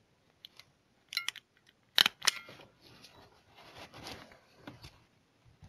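A few sharp metallic clicks, two of them close together about two seconds in with a brief ring, then faint rustling as small metal leatherworking tools and fittings are handled.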